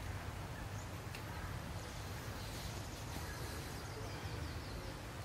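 Outdoor ambience: a steady low rumble with faint bird chirping. A quick run of short, high, falling chirps comes about halfway through.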